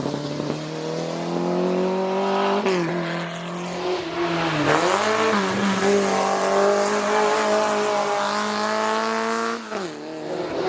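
Historic racing car's engine running hard under load, its note climbing steadily, with brief sharp drops in pitch about three, five and ten seconds in.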